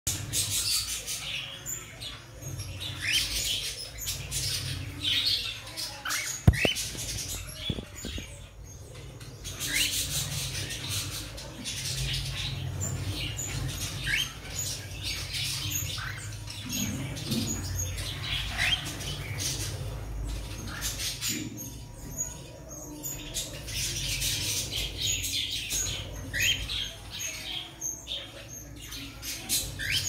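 Cockatiel chick calling: runs of raspy, hissing calls with short rising chirps now and then. One sharp click about six and a half seconds in.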